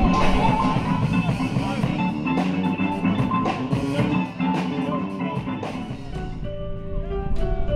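Band music with guitar and drums; about six and a half seconds in it thins out to separate held guitar notes.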